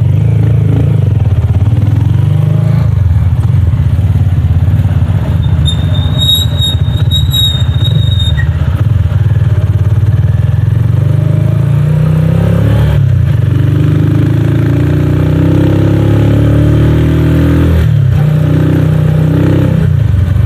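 Motorcycle engine of a tricycle (motorcycle with sidecar) running steadily while riding, heard from inside the sidecar. About six seconds in, a high squeal lasts about two seconds.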